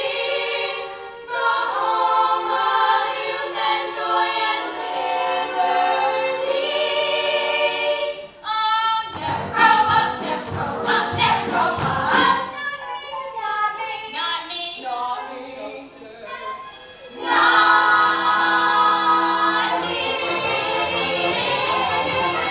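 A young stage cast singing together in chorus, holding long notes. About a third of the way in the singing gives way to a choppier, busier stretch, then the full chorus comes back in near the end.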